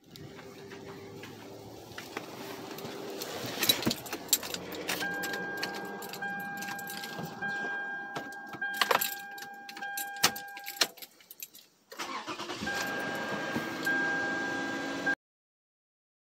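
Inside a crash-damaged Toyota Camry's cabin, keys jangle and click at the ignition while a steady electronic warning tone sounds on and off. The sound cuts out abruptly near the end.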